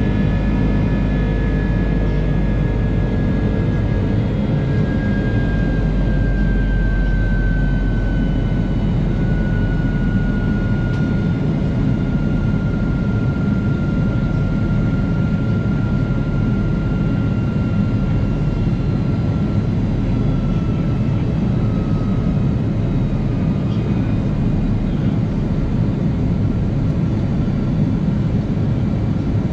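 Airbus A330 jet engines and airflow heard inside the passenger cabin: a steady loud rush, with the engines' whine sliding slowly down in pitch over the first twenty seconds or so.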